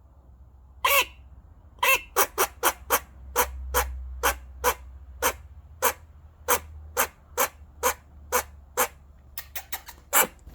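Pet eastern grey squirrel giving alarm barks: a long run of short, sharp barks about two a second, coming faster and closer together near the end.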